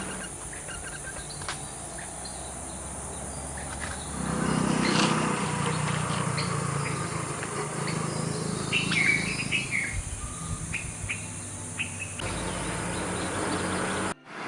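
Birds chirping over a steady high insect buzz in forest, with a low rumble swelling briefly about four to five seconds in.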